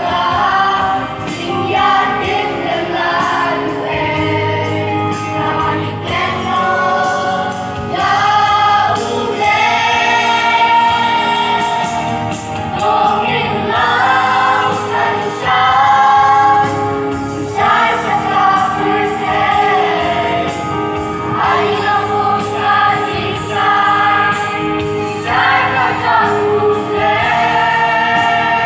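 A choir singing a gospel hymn in long held phrases.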